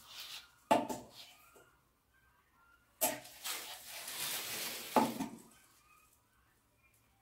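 Ceramic wall tile and tiling tools knocking and scraping as a tile is set on adhesive: a sharp knock about a second in, then another knock followed by about two seconds of scraping that ends in a thump.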